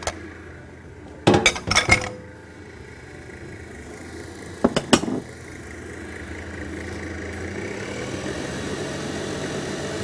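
Electric stand mixer running and beating a dough, its motor humming steadily and rising a little in pitch near the end. Two clusters of sharp clinks against the metal mixing bowl, one about a second in and one near five seconds, are the loudest sounds.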